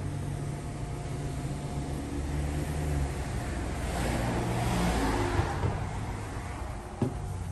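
Street traffic: a vehicle engine running with a steady low hum, then a car passing by, loudest about four to five seconds in. A single sharp click near the end.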